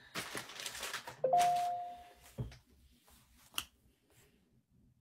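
Rustling handling noise, then a two-note chime sounding about a second in, a lower note followed at once by a higher one held for about a second. A soft thump and a short click follow.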